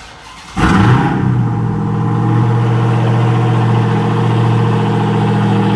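Dodge Charger Hellcat's supercharged 6.2-litre V8 starting with a loud flare about half a second in, then settling into a steady idle. The engine now starts although it would not the night before, its fault codes having just been cleared. The sound stops abruptly near the end.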